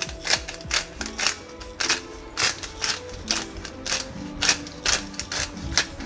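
Background music with a steady beat: sharp percussive hits about twice a second over changing sustained notes.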